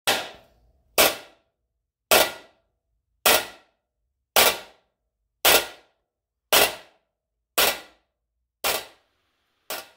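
Hammer blows on metal: ten sharp, evenly spaced strikes about one a second, each ringing briefly, the last few a little quieter.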